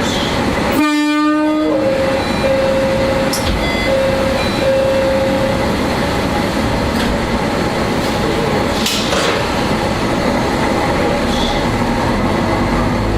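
Single-car diesel railcar running along the line with steady running noise, its horn sounding once for about a second near the start. A steady whine follows for a few seconds, and there are a few sharp clicks from the running gear.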